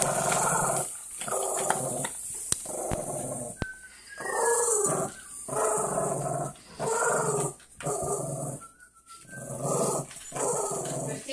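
Dogs play-growling in repeated bursts while tugging on a toy in a game of tug-of-war, with a few short clicks in between.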